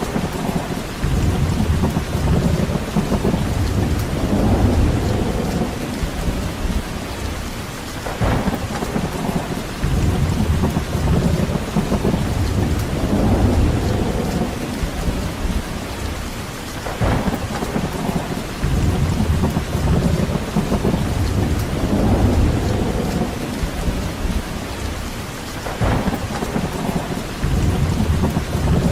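Steady rain with low rolls of thunder that swell and die away about every nine seconds, each opening with a sharp crack.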